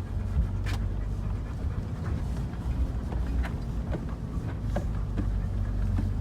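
UAZ Patriot's engine running at low revs in first gear, heard from inside the cabin, with a few short knocks and rattles from the interior as the car bumps over rough ground and a pothole.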